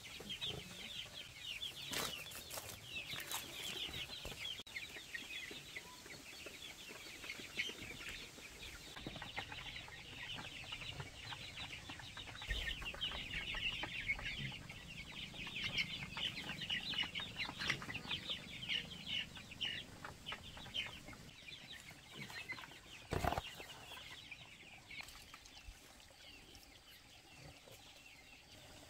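A flock of young chickens peeping, with many short, high chirps overlapping without a break, thinning out near the end. A single sharp knock late on is the loudest sound.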